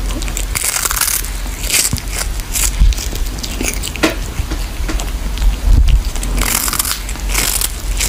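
A cat chewing on a dried fish, with irregular crunches about one or two a second.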